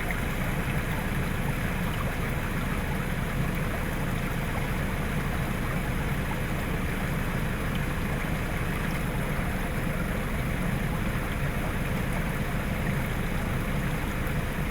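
Land Rover Defender 90's four-cylinder diesel engine running steadily, mixed with the rush of stream water.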